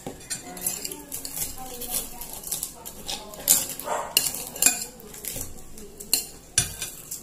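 Metal spoons clinking and scraping against plates while eating, in a run of short, irregular clicks.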